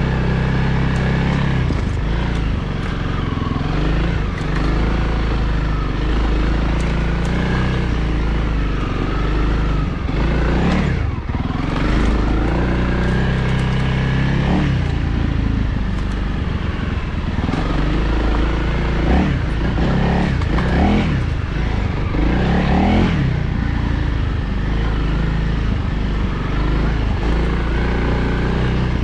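Honda CRF300L's single-cylinder four-stroke engine running while under way, its revs rising and falling repeatedly, with several brief rev-ups around the middle and again a few seconds later.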